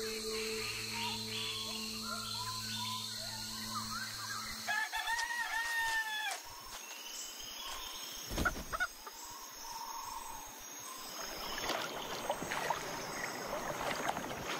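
A rooster crowing once, an arching call about five seconds in. Before it a steady low hum stops abruptly, and a single sharp knock follows a few seconds after the crow.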